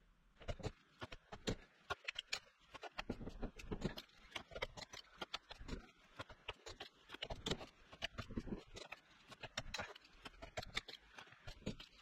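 Quick, irregular metallic clicks and taps from a wrench working the crown wheel bolts on a differential carrier clamped in a vise, as the bolts are torqued to spec and marked off.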